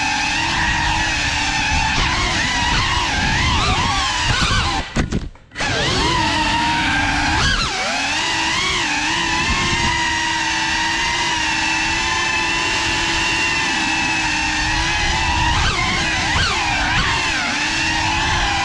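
FPV quadcopter's motors and propellers whining, the pitch rising and falling with throttle changes. The sound cuts out for about half a second about five seconds in, then picks back up.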